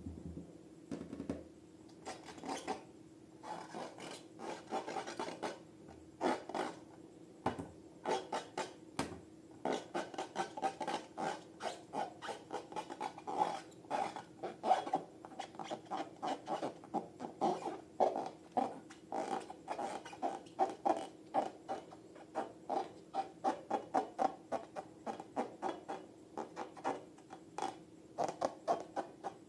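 Quick rhythmic rubbing and scraping strokes from slime-making, sparse at first and then about three to four a second, over a faint steady hum.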